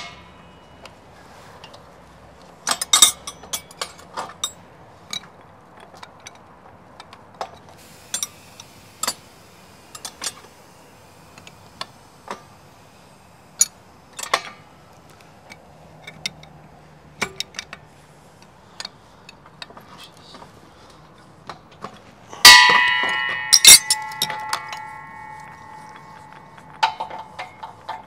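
Hand tools and metal fittings at work on an RV's propane regulator: scattered irregular clicks and taps, then about three-quarters of the way in two loud metal clangs about a second apart that ring on and fade, with a few more ringing taps near the end.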